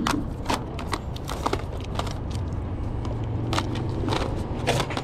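Plastic video game cases clacking against one another as they are flipped through by hand in a wire basket: a run of irregular clicks over a steady low rumble.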